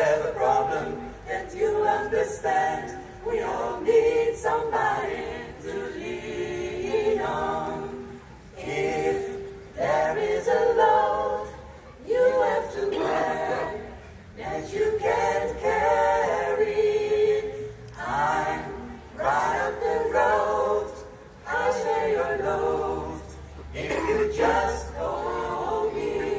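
A mixed vocal group of women's and men's voices singing a cappella in close harmony, in phrases of a few seconds with short breaths between them.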